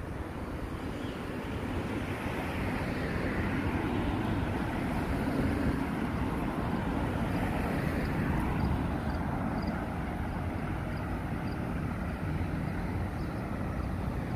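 Road traffic passing on a street: a steady wash of car engine and tyre noise that grows louder about two seconds in and holds.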